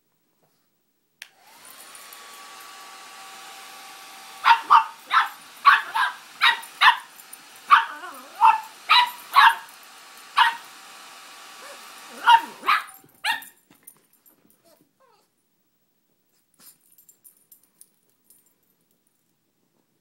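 A handheld hair dryer clicks on about a second in and blows steadily with a whine, while a pug puppy barks at it in a string of about fifteen sharp barks in bursts from about four seconds in; the dryer cuts off around thirteen seconds in, with the last barks.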